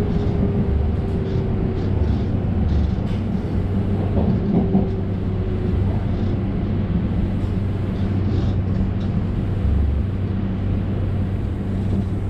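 Diesel railcar running, heard from inside the car: a steady low engine hum with rolling rail noise. A faint whine falls slowly in pitch over the first several seconds.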